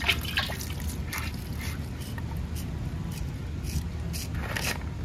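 Water dripping and splashing off a freshly washed wooden chopping block in scattered short splashes.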